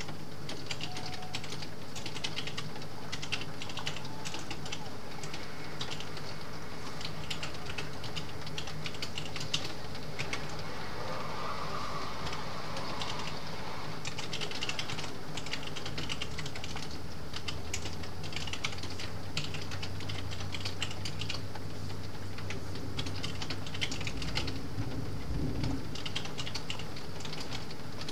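Computer keyboard typing, quick irregular key clicks, over a steady hiss of rain on the skylight. A low rumble of thunder builds in the second half.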